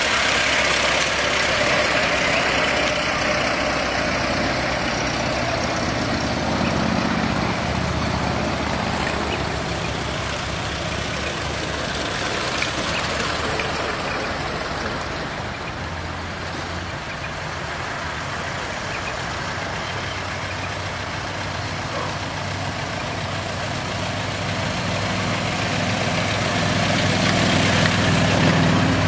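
Ford Model T four-cylinder side-valve engines running as the cars drive slowly past one after another. The sound is loud as a Model T truck passes at the start, fades in the middle, and grows again near the end as the next Model T comes close.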